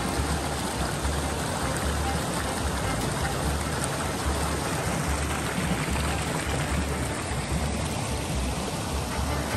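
Shallow, fast-flowing stream rushing over a stony bed: a steady, even rush of water.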